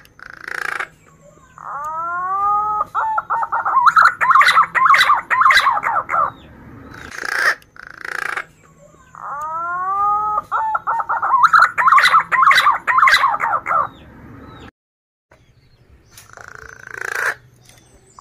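Male punai daun (green pigeon) singing. Each song opens with a few whistled notes sliding upward, then runs into a rapid warbling trill lasting several seconds. Two full songs are heard, with a third starting at the end, and short hissy bursts fall between them.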